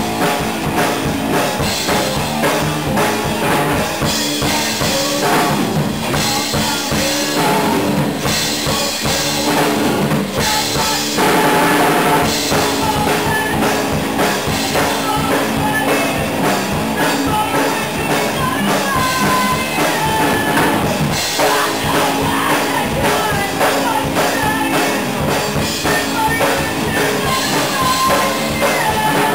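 A small rock band playing live in a room: drum kit with a steady beat, electric guitar and acoustic guitar.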